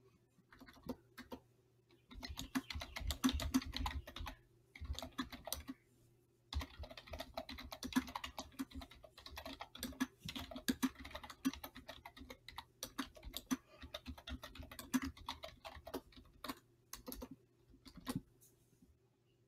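Computer keyboard typing in fast runs of keystrokes that start about two seconds in, with short pauses, thinning to a few scattered keystrokes near the end. A faint steady hum sits underneath.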